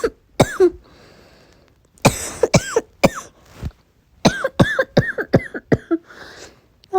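A person coughing: a single cough just after the start, then two fits of quick coughs in a row, one about two seconds in and a longer one from about four seconds in. This is the bad, painful cough of someone sick with a sore throat.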